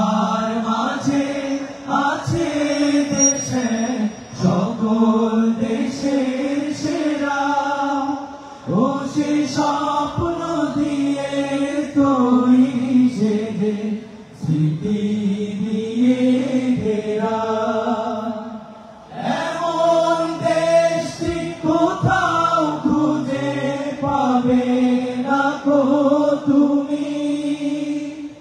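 A group of men singing an Islamic devotional song together into microphones through a PA, without instruments. They sing in phrases, with short breaks about 8, 14 and 19 seconds in.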